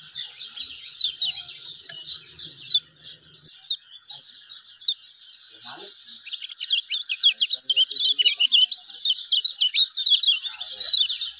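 Lemon-bellied white-eye (kecial kuning) singing without pause: a dense stream of quick, high, falling chirps, busiest in the second half.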